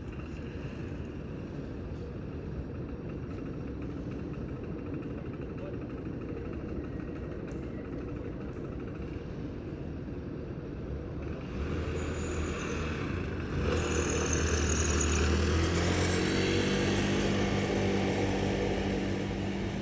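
Road traffic noise, then a motor vehicle's engine comes close partway through, running steadily and louder for several seconds before easing near the end.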